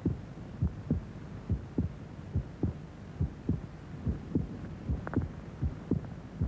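Slow heartbeat: paired low thumps, lub-dub, repeating evenly a little faster than once a second, over a steady low hum.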